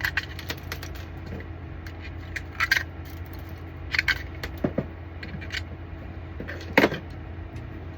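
Small hard plastic pieces clicking, clattering and scraping as they are handled and pulled at, with a few sharper clicks spread through and the loudest near the end, over a steady low hum.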